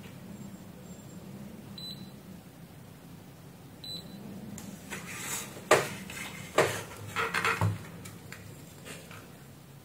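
Two short high beeps from a digital multimeter in diode-test mode as its probes touch the regulator IC's pins, about 2 and 4 seconds in. Then a run of clicks and rustles as the probes and board are handled, the loudest a sharp click about halfway through.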